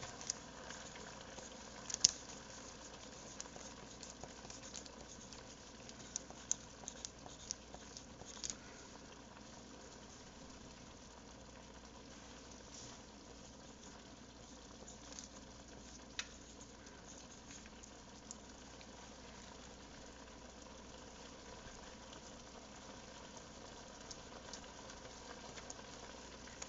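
Pot simmering on the stove with a faint, steady bubbling, broken by scattered light clicks and taps, the sharpest about two seconds in.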